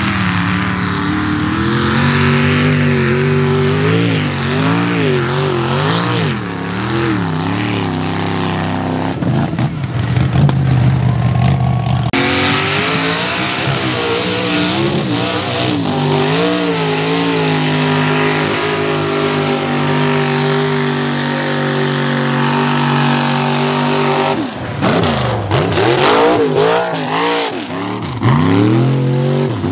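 Mud racing trucks' engines revving hard as they run through mud, the engine pitch swinging up and down as the throttle is worked, over the noise of tyres churning and throwing mud. The engine sound changes abruptly twice as it switches to a different truck.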